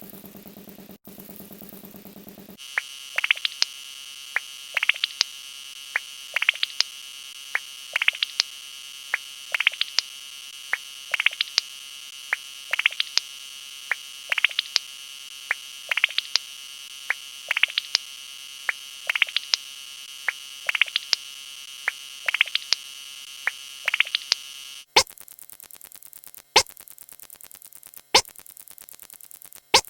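Synthesized electronic sound effects: a steady buzzing drone with short, sharp chirps in pairs about every one and a half seconds. Near the end the drone changes and the chirps give way to single sharp clicks.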